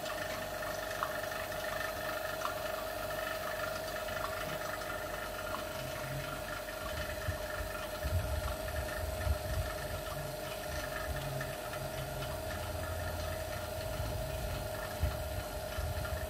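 Baba Tools 2100 Pro+ OCA laminating machine running with a steady hum partway through its lamination cycle, as it counts down before the press descends. Some low rumbling and a few light bumps join in from about seven seconds in.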